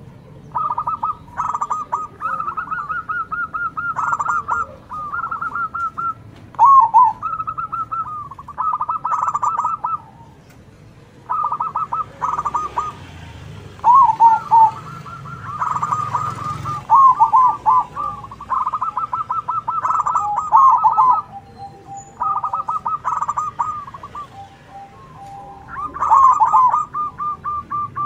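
Zebra doves (perkutut) singing, several birds answering one another. Each phrase is a quick run of short, clipped coos, repeated every second or two and sometimes overlapping.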